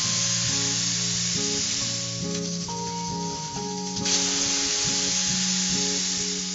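Hot, just-opened pressure cooker of boiled chickpeas hissing and sizzling as they are stirred with a wooden spatula. The hiss eases off midway and comes back abruptly about four seconds in, over background music with sustained notes.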